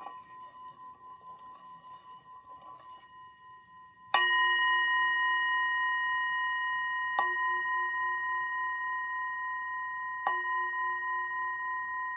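Brass singing bowl sounded with a wooden mallet as a call to prayer: it rings softly at first, then is struck three times about three seconds apart, the first strike loudest, each strike renewing a long, steady ring that runs on into the next.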